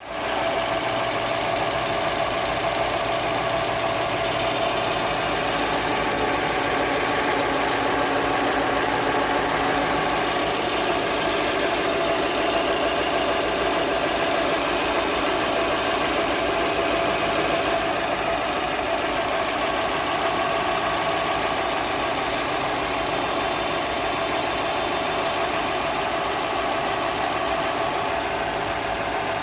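Hyundai i30 engine running steadily, with an irregular noise that shows up only while the engine is cold.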